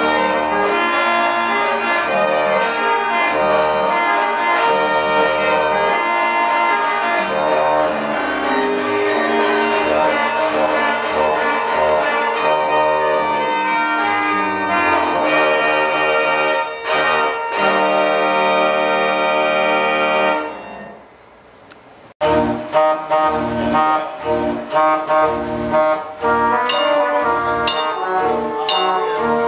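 Mechanical music machines playing band-organ style tunes, with brass-like and organ pipe tones. The first tune fades out about twenty seconds in, and a second one starts abruptly with sharp drum and cymbal strikes over it.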